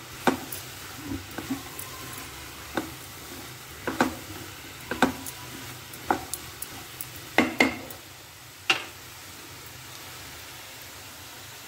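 Wooden spatula stirring diced watermelon rind in a nonstick frying pan: a string of knocks and scrapes against the pan over a low sizzle. The stirring stops about nine seconds in and the sizzle goes on alone.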